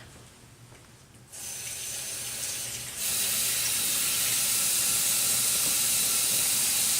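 Kitchen sink tap turned on about a second in, water running steadily into the sink for hand washing, the flow growing louder about three seconds in.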